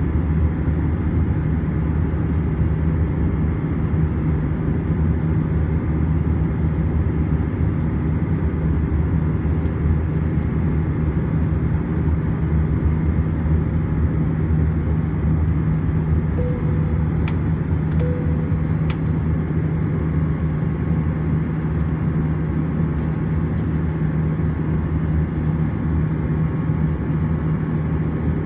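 Airbus A320-200 cabin noise from a window seat beside the wing-mounted turbofan engine while the airliner climbs: a steady, loud drone of engines and airflow with a strong low hum.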